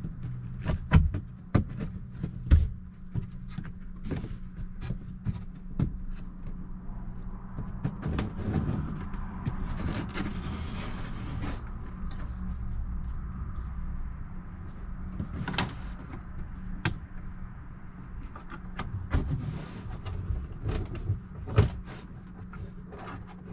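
Hands handling wiring and small plastic parts: scattered clicks and taps, with a stretch of rustling about a third of the way in, over a steady low hum.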